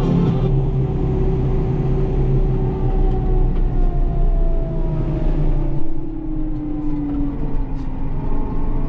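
Tractor running, heard from inside its cab: a steady low rumble with a whine that slowly falls in pitch, then rises again near the end as the tractor's speed changes.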